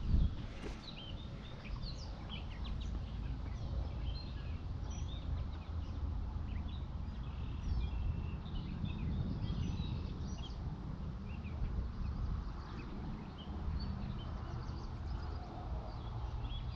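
Several songbirds chirping and singing over a steady low rumble of wind on the microphone, with a single knock just after the start as the camera is handled.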